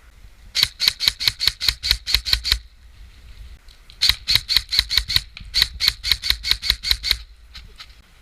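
Airsoft gun firing two volleys of rapid shots, about five a second, each a sharp click. The first volley of about ten shots comes in the first few seconds, and a longer one of about fifteen follows after a short pause.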